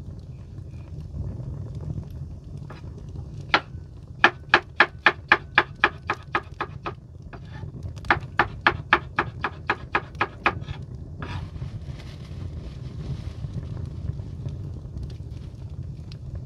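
Knife chopping on a cutting board in two quick runs of about ten strokes each, at roughly four strokes a second, over a steady low rumble.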